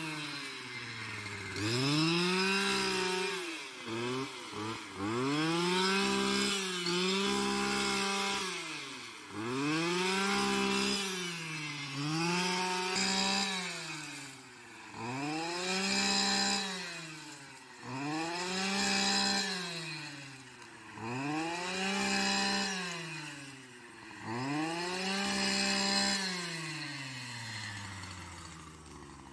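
Stihl petrol brushcutter engine revving up and easing back down, over and over about every three seconds, as it cuts through tall grass.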